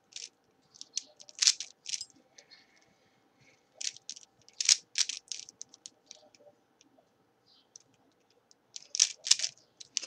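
Layers of a plastic 3x3 puzzle cube being turned by hand: sharp clicking turns in three quick runs, with quieter scattered clicks and short pauses between them.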